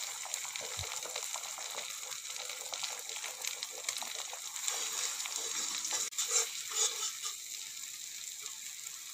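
Beaten eggs sizzling in hot oil in a kadai (wok), stirred and broken up into scrambled egg with a flat metal spatula, with a few scrapes of the spatula on the pan.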